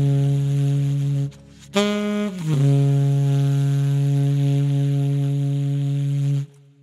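Music: low, long-held notes on a wind instrument. There is a short break a little over a second in, then a slide down into a second held note that stops abruptly near the end.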